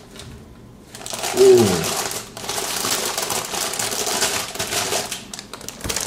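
Packaging rustling and crinkling as a power supply is unwrapped and handled, a dense crackly noise that starts about a second in. A brief falling tone about a second and a half in.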